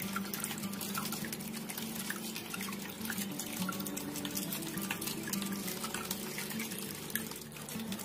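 Water falling and splashing steadily in a small homemade waterfall fountain, a continuous trickle and spatter.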